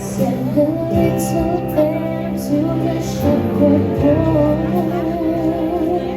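Music: a woman's voice singing a song with vibrato over steady sustained instrumental accompaniment.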